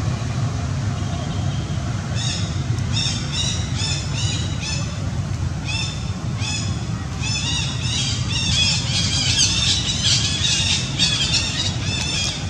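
Baby macaque crying: a run of short, high-pitched squealing cries, several a second, starting about two seconds in and growing louder past the middle, over a steady low rumble.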